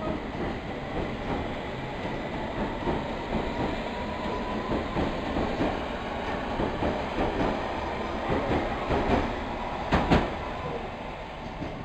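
London Underground S Stock train pulling out along the platform: wheels clattering over rail joints with a faint traction-motor whine that rises slightly, then holds. A loud clunk comes about ten seconds in, and the sound fades near the end as the train draws away.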